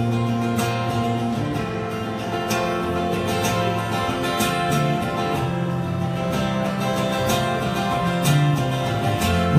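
Acoustic guitar strumming with an electric bass guitar holding low notes beneath it: an instrumental passage of a live duo performance, with no singing.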